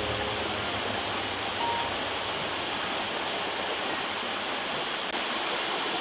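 Waterfall falling onto rock into a pool: a steady, even rush of water.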